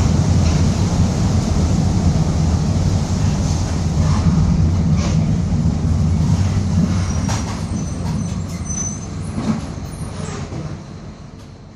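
Mercedes-Benz OF-1722M diesel city bus on the move, a steady deep drone with body rattles and clicks, carrying the differential growl that the bus is known for. The sound fades away over the last few seconds.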